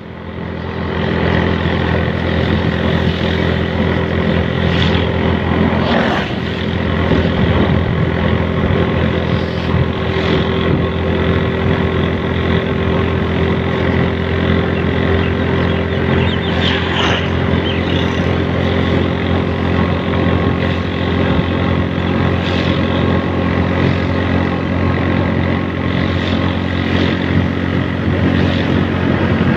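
Steady engine hum and road noise from a vehicle cruising at an even speed on a paved road.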